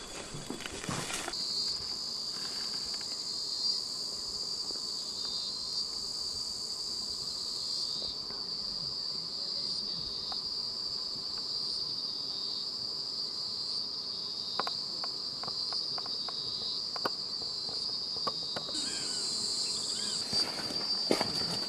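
Steady, high-pitched drone of insects chirring. Footsteps on stones sound in the first second and again near the end, with a few light clicks in between.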